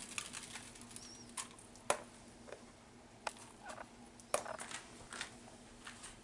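Soft, scattered clicks and light scrapes of a spoon scooping grated cheese from a plastic container and sprinkling it over a lasagna in a foil pan, with a few sharper ticks about two and four seconds in.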